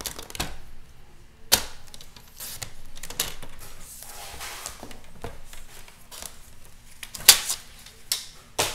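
Sliding-blade paper trimmer cutting a strip of patterned paper: a short scraping swish of the blade about halfway through, with scattered sharp clicks and taps as the cutter and paper are handled.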